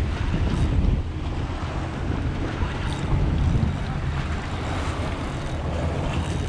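Wind buffeting the microphone as a steady low rumble, over choppy sea waves washing in.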